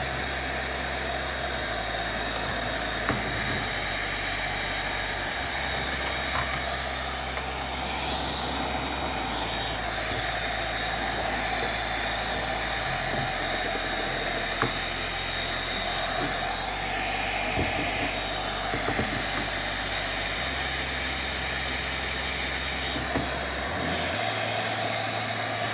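12-volt AVC centrifugal blower fan running steadily, a rush of air with a thin high whine over it.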